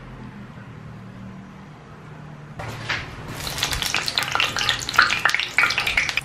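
Cooking oil in a nonstick frying pan heating on the stove, quiet at first, then breaking into a dense popping, crackling sizzle a little over halfway through that grows louder as the oil spits.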